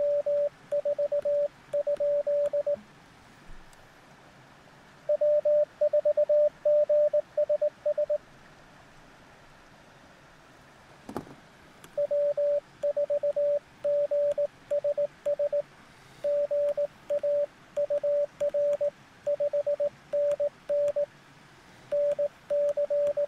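Morse code beeps from a Recent RS-978 HF transceiver: one steady mid-pitched tone keyed on and off in dots and dashes, in three runs separated by pauses. The long last run spells 'W4GSS GA UR 5NN NC BK', a contact exchange giving the other station a 599 signal report and the North Carolina location. A single click sounds about halfway through.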